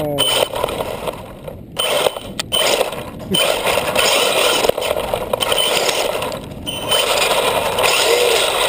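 Radio-controlled car driving across loose wood-chip mulch, its tyres churning and flinging the chips, a loud scraping rattle that comes in stop-start runs with a few short breaks.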